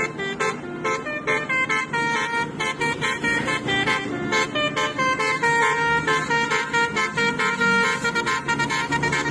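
Telolet basuri multi-tone air horns playing a fast run of short, stepped melodic notes.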